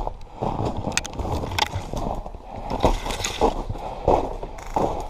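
Footsteps and gear rustle of a person moving on foot, with thuds about every half second and two sharp clicks a second or so in.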